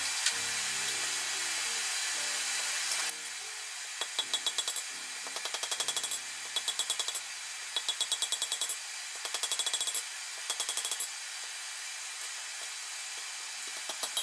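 Hand hammer striking red-hot iron on an anvil, the work held in a holed bolster block, while forging a wagon brake iron. The blows come in about seven quick bursts of several strikes each, every blow ringing sharply, after a steady hiss in the first three seconds.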